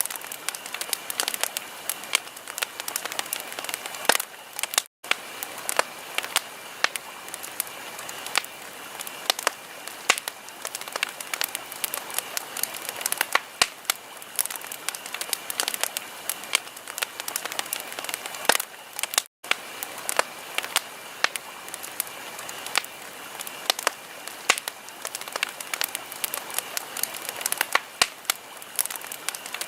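Wood fire crackling, with dense, irregular pops and snaps over a steady hiss. The sound cuts out for an instant twice.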